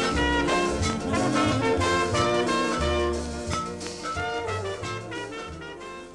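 Jazz band music with brass instruments, a swing feel and a walking bass line, fading down over the last couple of seconds.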